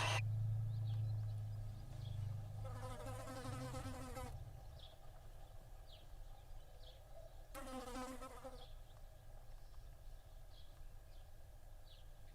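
Barn owl chicks giving two rasping, hissing begging calls, the first about a second and a half long and the second about a second. A low hum fades out about four seconds in, and faint short high ticks come and go between the calls.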